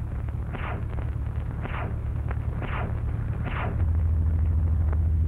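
Aircraft engine droning steadily on an early sound-film soundtrack, louder about four seconds in, with a hissing swell about once a second.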